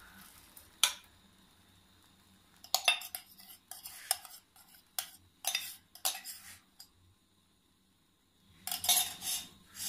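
Metal spoon clinking and scraping against a steel tumbler and a nonstick frying pan as beaten omelette egg is poured out and spread, in a scattered series of short clinks with a denser run of scraping near the end.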